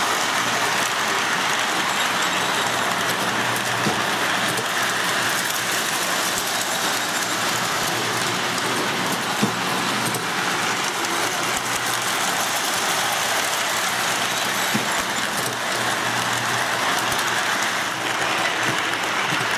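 O-gauge toy steam locomotive running on three-rail track: a steady mechanical running noise with a few faint clicks and a small knock about halfway through.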